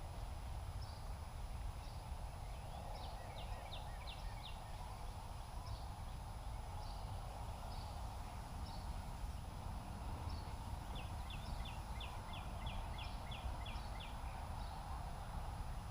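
Small birds chirping and trilling in short repeated phrases, with a fast trill of about ten notes near the end, over a steady low rumble.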